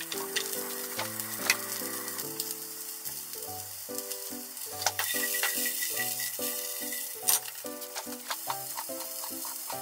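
Cut green vegetable pieces sizzling in oil in a frying pan, with a brief clatter about seven seconds in as they are moved about. Background music plays along.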